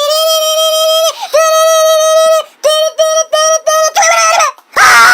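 High, squeaky, voice-like notes: a long held note with a short break, then four or five short clipped notes, ending in a loud harsh squawk that falls in pitch.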